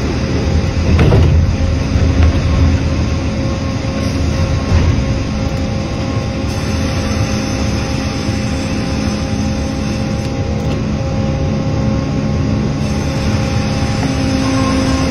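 Sawmill band saw cutting a white oak log on its carriage, a steady machine whine with several held tones over a heavier low rumble that is strongest in the first few seconds.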